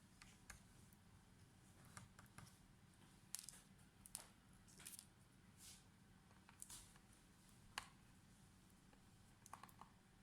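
Faint, scattered clicks and short scrapes of laptop parts and small tools being handled during disassembly, over a steady low hum.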